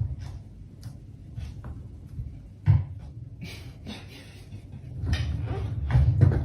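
Scattered knocks and clicks over a low rumble, with one sharp, loud thump about two and a half seconds in and a noisier rustling stretch near the end.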